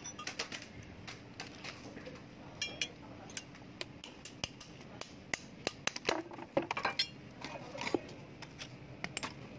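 Irregular metal clicks and scrapes from a screwdriver worked against and into the steel barrel of a pneumatic chipping hammer as it is taken apart.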